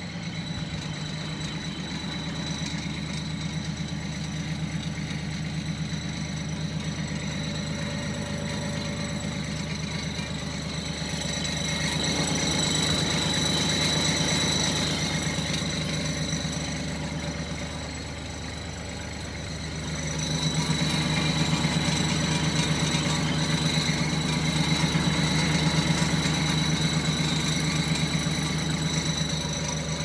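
Kubota L3700SU tractor's three-cylinder diesel engine idling steadily, twice growing louder for a few seconds.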